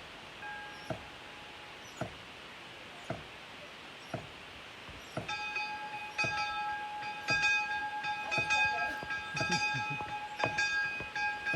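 A single church bell ringing, rung by hand on a rope to mark VE Day. For the first five seconds it is faint, with light knocks about once a second, then it rings out loudly, struck about once a second with its hum carrying on between strikes.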